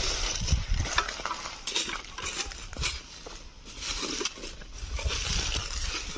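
Footsteps and a digging tool crunching and rustling through dry leaves, twigs and loose soil: irregular crackles and scrapes with dull low thumps.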